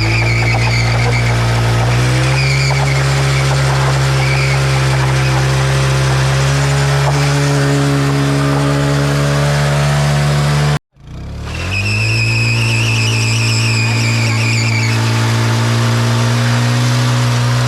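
Single-cylinder engine of a TVS Apache motorcycle held at steady high revs during a burnout, with the rear tyre spinning and squealing on the road. The sound cuts out briefly about eleven seconds in, then the revs climb back up and the squeal returns, loudest shortly after.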